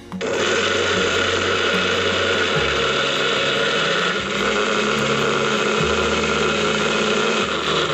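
Small electric blender's motor switched on and running steadily, chopping whole chillies, shallots, garlic and candlenuts in its cup into a coarse spice paste.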